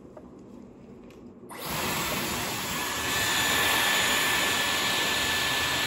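Dyson Airwrap switching on about a second and a half in, its motor and fan blowing air steadily with a faint high whine.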